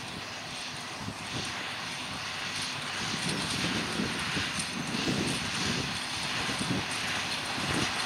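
Massey Ferguson 6190's six-cylinder diesel engine running steadily under load while pulling a Welger AP830 small square baler through a straw row, getting gradually louder.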